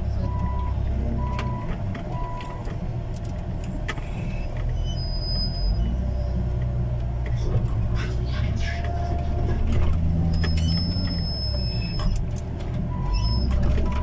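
A front loader's diesel engine running under load, heard from inside the cab, with knocks and rattles as the bucket works the dirt. A short beep repeats at the start and again near the end.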